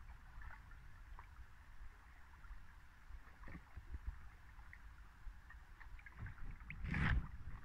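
Stand-up paddleboard paddling on calm river water: faint drips and small splashes from the paddle over a low steady rumble, with one louder paddle splash near the end.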